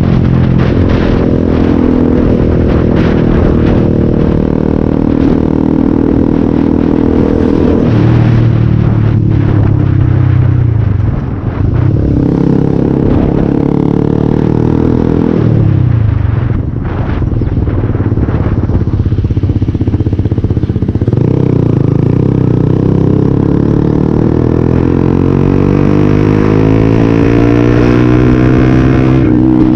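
Yamaha R15 motorcycle's single-cylinder engine running through a loud aftermarket silencer while riding, its note climbing through the revs, dropping off twice as the throttle eases, then rising steadily again for a long pull near the end.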